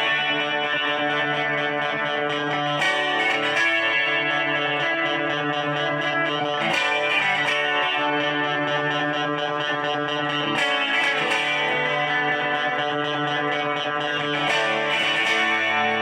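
Strat-style electric guitar with an ash body and rosewood fingerboard played through a clean tone: chords struck every few seconds and left to ring.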